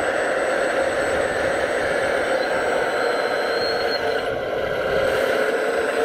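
Remote-control model construction machine running with a steady engine-like drone.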